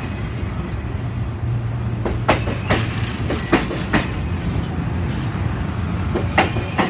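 Passenger train cars rolling past, their wheels clacking over rail joints in pairs of sharp clicks, three pairs in all, over a steady low rumble.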